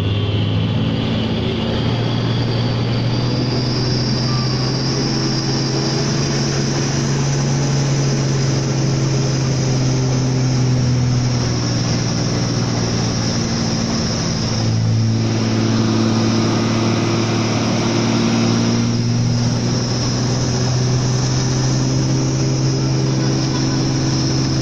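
Hino Ranger SG260Ti truck's turbo-diesel engine pulling steadily under a heavy load (about 26 t of steel in a 40 ft container), with road and cab noise. The engine note dips and changes pitch briefly about fifteen seconds in and again a few seconds later.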